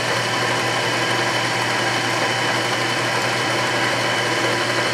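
South Bend 9-inch toolroom lathe running at a steady speed, its motor and drive giving a steady hum with a thin high whine, while the lead screw turns.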